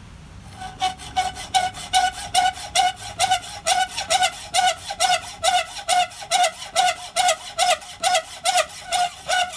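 Hacksaw cutting lengthwise into a half-inch square steel bar held in a vise, starting about a second in: even back-and-forth strokes, two to three a second, each with a high, ringing squeal from the blade on the steel.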